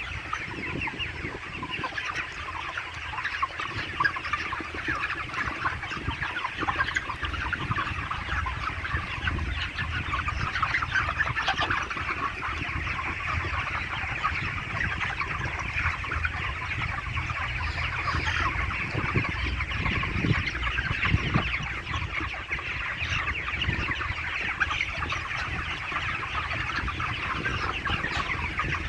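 A large flock of 35-day-old chickens clucking and cheeping continuously, many birds calling over one another.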